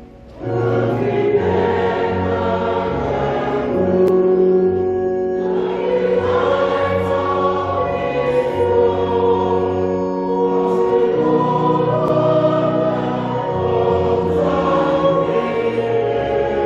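Choir singing church music in sustained held chords, starting about half a second in.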